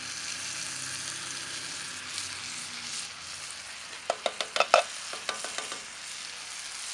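Ground beef and vegetables sizzling steadily in a hot cast iron skillet as canned pork and beans are poured in. About four seconds in comes a quick run of sharp metallic clinks as the tin can knocks against the skillet.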